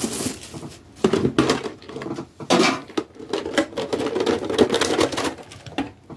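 Pokémon trading cards being flicked through one by one from a freshly opened booster pack: a run of light, irregular clicks and rustles of card stock.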